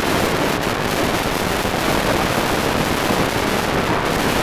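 Strong, steady wind noise on the microphone, with vehicles passing close by on the highway.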